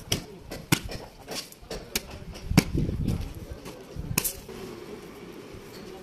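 Irregular sharp knocks and clicks, about six in the first four seconds, as a long-handled shovel and cement bags are worked over a heap of crushed stone aggregate, with low rustling and crunching between them.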